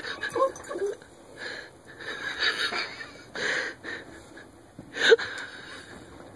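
Recorded coyote pup whimpering cries played through a small phone speaker, coming in short bursts about once a second, the loudest one sharp and about five seconds in.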